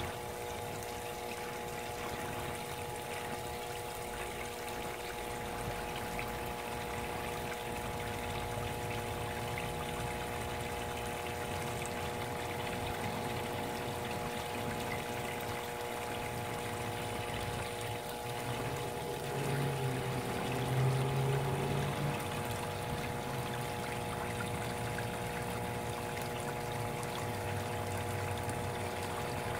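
Water running and trickling steadily in a garden koi pond, over a steady hum. A louder low rumble comes in about two-thirds of the way through.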